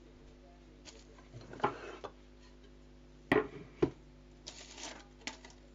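A few sharp knocks and short rustling clatters, the loudest two close together about three and a half seconds in, over a steady low hum.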